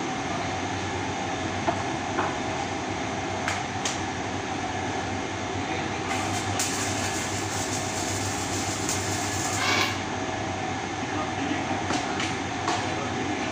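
Electric arc welding on a steel pipe: a hissing crackle of the arc starts about six seconds in and stops after about four seconds, over a steady machine hum with a fixed tone. A few sharp metallic clicks come before and after it.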